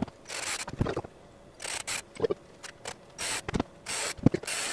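Handling noise from a juniper log rack with mule deer antlers screwed to it: about five short scraping rubs, each under half a second, broken by a few sharp knocks of wood and antler.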